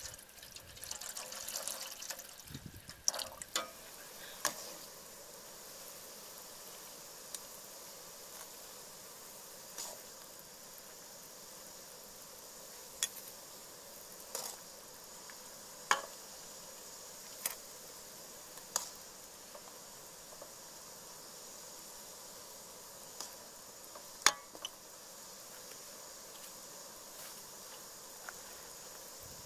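Water pouring and splashing into an aluminium cooking pot of sliced lemongrass and chili for the first few seconds. Then a steady faint hiss with scattered sharp clicks and taps.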